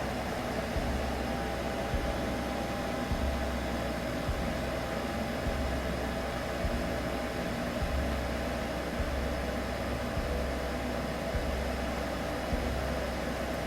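Steady droning hum over a noise-like hiss, made as a soothing sleep sound for a baby, with a low throb repeating a little more than once a second.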